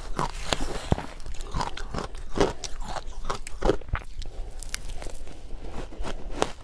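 Close-miked crunching and chewing of powdery shaved ice topped with matcha powder, a dense run of sharp, irregular crackles as each big mouthful is bitten and chewed.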